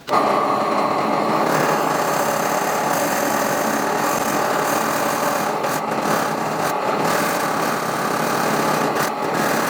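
A power tool cutting or shaping wood, starting suddenly and running at a steady, even pitch.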